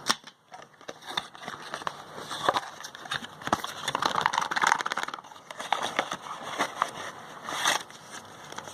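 Plastic packaging crinkling and rustling with scattered small clicks and taps as phone accessories are unpacked by hand.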